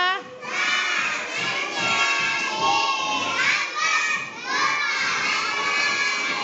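A class of young schoolchildren chanting a prayer aloud together, many loud voices overlapping in unison.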